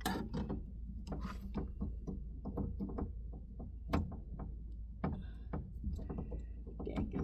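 Scattered clicks, taps and plastic rattles of hands working at the window regulator motor's electrical connector clip inside a car door, with one sharper click about four seconds in.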